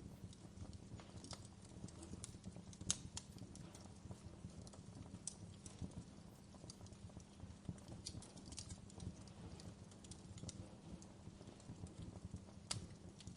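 Wood fire in a fireplace crackling, with irregular pops and snaps over a low steady rumble; the sharpest pops come about three seconds in and near the end.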